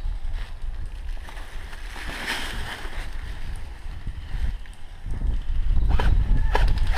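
Wind rumbling on the microphone. About six seconds in, quick, repeated footsteps begin, like someone starting to run.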